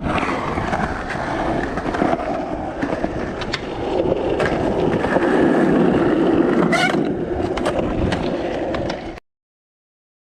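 Skateboard wheels rolling over rough, cracked concrete, with a few sharp clacks of the board along the way. The sound cuts off abruptly about nine seconds in.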